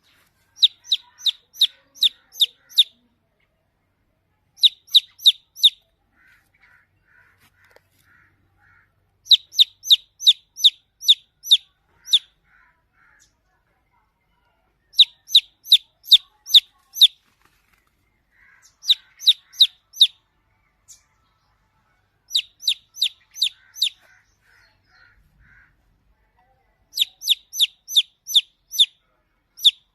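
Baby chicks peeping: loud, high, short chirps in bouts of about five to eight, roughly three a second, with pauses between the bouts. Fainter, lower peeps come in some of the gaps.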